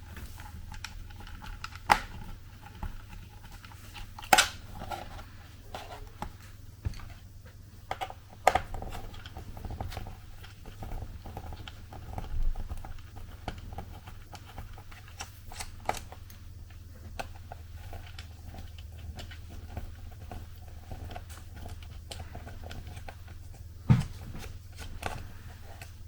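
Scattered small clicks and taps of a Torx screwdriver turning out and lifting the small screws from a Lenovo Yoga laptop's bottom case. There are a few sharper knocks, the loudest about 2, 4, 8 and 24 seconds in, over a low steady hum.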